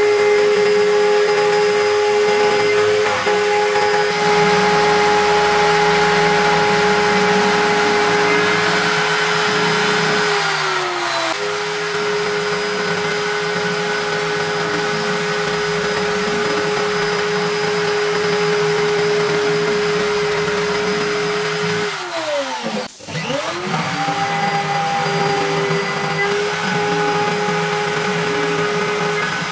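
Router spindle of a homemade CNC router whining steadily as an end mill cuts a pocket into an aluminium plate. The whine sags in pitch briefly about ten seconds in. About 23 seconds in it falls steeply and climbs back up.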